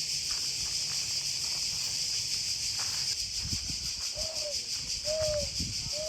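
Cicadas buzzing steadily. From about four seconds in, three short hooting tones from a person blowing into cupped hands to imitate an owl call.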